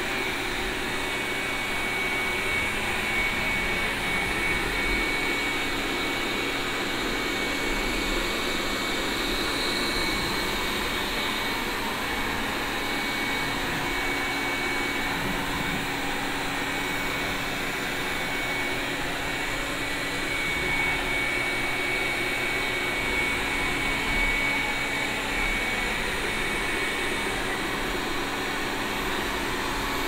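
Tacklife S10 Pro robot vacuum running on a hard floor in mopping mode: a steady whir from its suction fan with a thin, high, constant whine.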